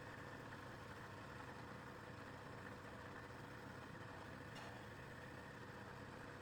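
Faint, steady hum of an electric motor running, with a single light click about two-thirds of the way through.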